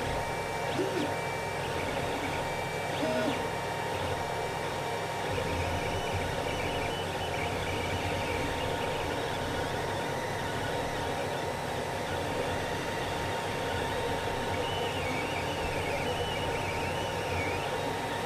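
Creality CR-10 3D printer running a print: steady whir of its cooling fans with a constant tone, and short whines that shift in pitch as the stepper motors move the print head.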